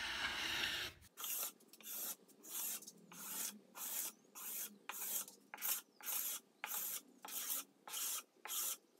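A steel chisel used as a scraper, pushed in short strokes across a reclaimed hardwood tabletop to clean dried glue off the glue lines. It rasps about twice a second after one longer stroke at the start.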